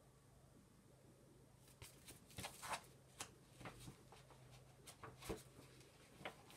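Soft rustles and light clicks of a paperback picture book's pages being opened and handled, starting about two seconds in, over a faint room hum.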